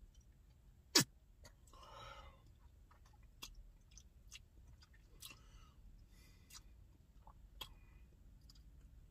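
Faint mouth sounds of a person tasting beer after a swig: scattered lip smacks and tongue clicks, with one sharp smack about a second in and a short breathy exhale just after.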